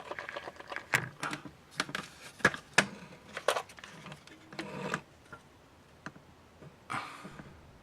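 MIG welder laying short tack welds on sheet steel: irregular crackling bursts, several in the first five seconds and one more near the end.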